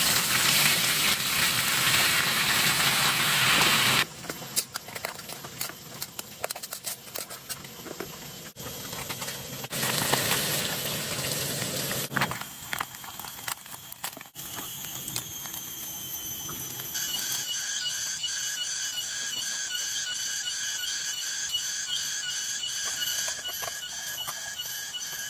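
Steady hiss of heavy rain, broken by abrupt cuts to quieter stretches of scattered drips and pattering. From about two thirds in, a pulsing insect chorus runs steadily.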